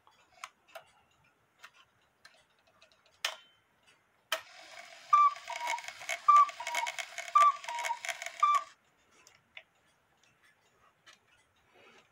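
One-day cuckoo clock ticking, then two clicks and its bellows-driven whistle pipes sounding the two-note falling cuckoo call about a second apart, three full calls and a fourth that stops after its high note. The strike stalls there, which the repairer puts down to a low note lift wire not yet adjusted right.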